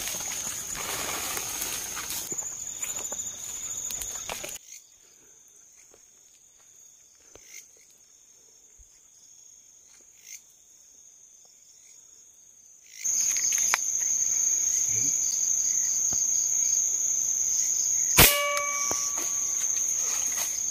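Night-time insect chorus: a steady, high-pitched cricket drone that drops out for about eight seconds midway, then returns. Near the end a single sharp shot cracks out, the loudest sound.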